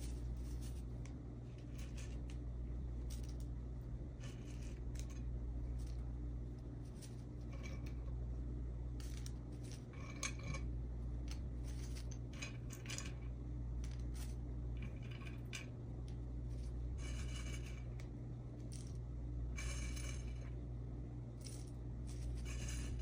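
Dried medicinal herbs (mint, angelica root, cinnamon bark, cloves) being scooped and dropped into a small cloth sachet: scattered short bouts of dry rustling and light clicking, a dozen or so, over a steady low hum.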